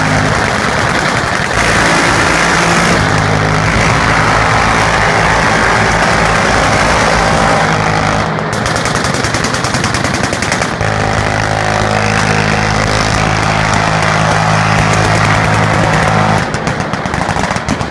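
Engines of SWCC riverine assault boats running hard with the rush of their wakes as the boats pull away from the bank. From about 8 to 11 seconds in, the engine tone drops back under a stretch of very rapid, continuous automatic gunfire. Near the end it gives way to pulsing machine-gun fire.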